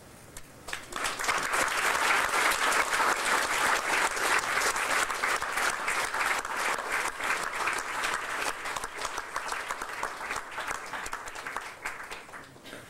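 Audience applauding at the end of a piece of live music, swelling about a second in and tapering off near the end.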